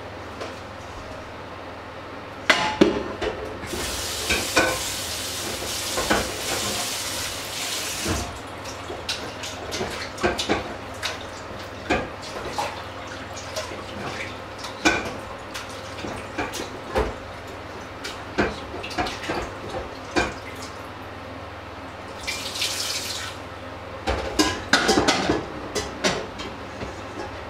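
Washing up at a kitchen sink: the tap runs for about four seconds early on and again briefly near the end, while steel pots and dishes clank and knock many times throughout.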